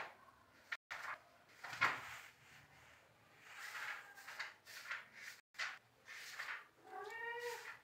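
A cat meows once near the end, after a few short scraping and rustling noises.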